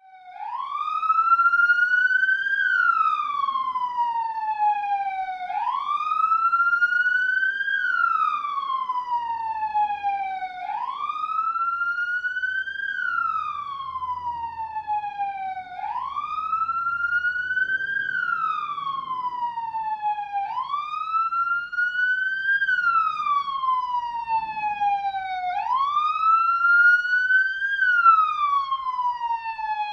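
Police car siren sounding a slow wail, its pitch rising and falling about once every five seconds. Each rise is a little quicker than the fall.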